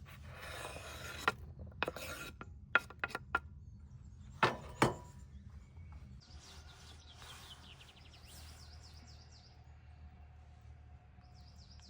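Knife chopping and scraping on a wooden cutting board, a run of sharp knocks over the first few seconds. From about six seconds in, birds chirp in a quick repeated pattern.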